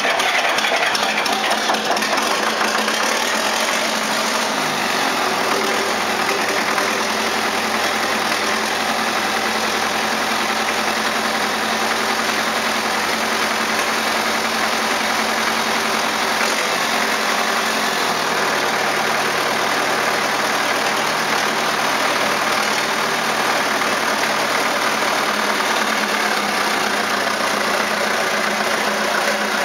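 Vintage Zetor tractor's diesel engine running at idle just after a cold start, smoking heavily. Its low note shifts about two-thirds of the way through.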